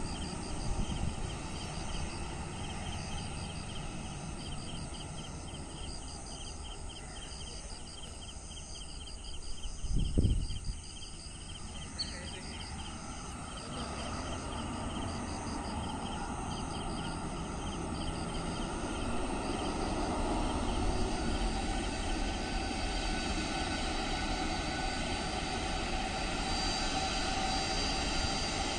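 Distant Boeing 737-800's CFM56 jet engines at low thrust as the airliner taxis on the runway after landing, a steady rumble and whine that grows gradually louder through the second half. Rapid, even high-pitched pulsing runs through the first part, and there is a short low thump about ten seconds in.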